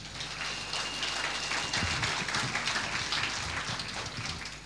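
Audience applauding: a dense patter of clapping that swells just after the start, holds, and thins out near the end.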